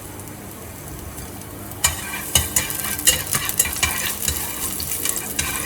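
Onions hitting hot oil in a pan about two seconds in, then frying with a steady sizzle and many rapid crackling pops.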